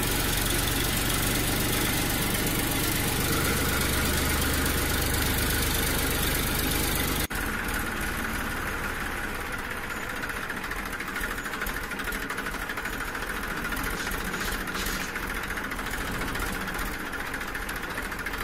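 A motor running steadily. About seven seconds in the sound changes abruptly, then runs on a little quieter.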